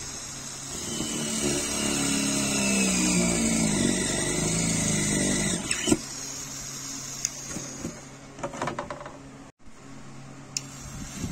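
Homemade mini drill built from a small DC motor salvaged from a DVD player whirring as its bit drills into a wooden board, the pitch wavering as the load changes. It stops with a click about six seconds in, followed by a few faint knocks.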